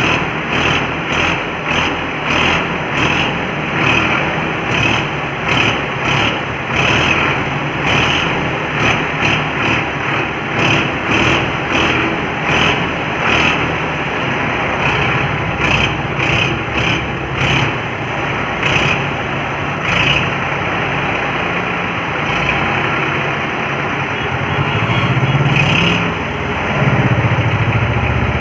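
Massey Ferguson tractor's diesel engine running as it works the front loader, with a regular pulsing about twice a second. The engine note rises near the end.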